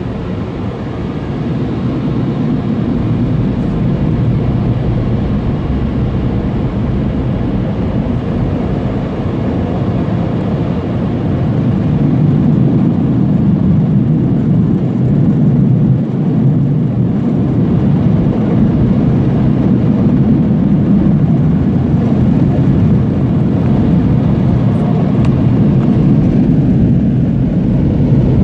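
Car wash air dryer blowers running, a steady loud rush of air over the car heard from inside the cabin, growing louder about twelve seconds in.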